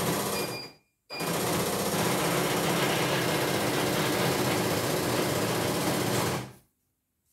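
E900 computerized embroidery machine's needle drive running fast and steadily for about five seconds after a brief first burst, with short electronic beeps as it starts; the machine is in for running over-speed.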